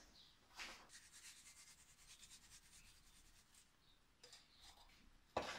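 Faint rubbing and rapid light shaking as icing sugar is sifted through a metal fine-mesh sieve, then a short knock near the end.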